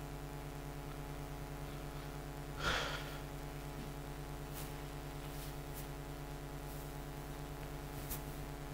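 Steady electrical mains hum in a quiet room. A short burst of noise comes about two and a half seconds in, and a few faint clicks follow later.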